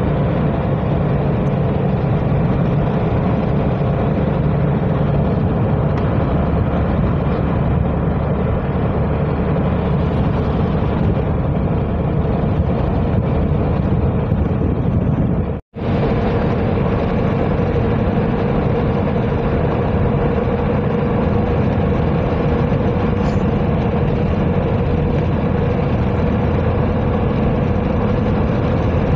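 Steady road and engine noise of a car driving, heard from inside the cabin, with a steady hum; it cuts out for an instant about halfway through.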